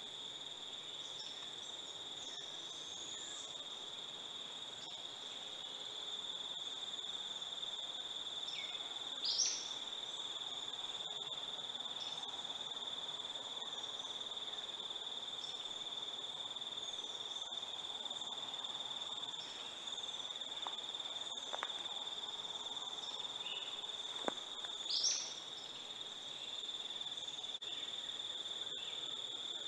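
Steady high-pitched drone of insects, with a second fainter higher tone above it. Small birds chirp here and there, and two louder short gliding bird calls come about 9 and 25 seconds in.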